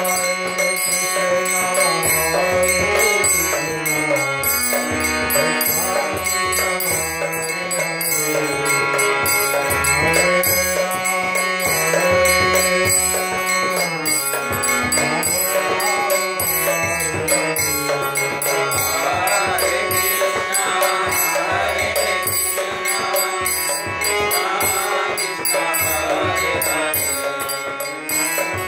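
A man singing a devotional chant to a sustained reed-organ accompaniment, likely a harmonium, with a light jingling percussion beneath. The voice glides slowly in long melodic phrases over held chords, with no break.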